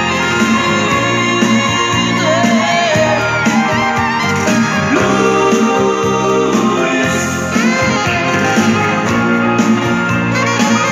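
Electronic keyboard playing an instrumental passage of a pop ballad: a full arrangement with bass and chords under a melodic lead line that bends in pitch.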